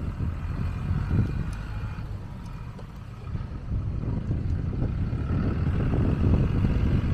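Riding noise from a bicycle: the uneven low rumble of wind buffeting a small handheld camera's microphone, mixed with the tyres rolling over paving stones.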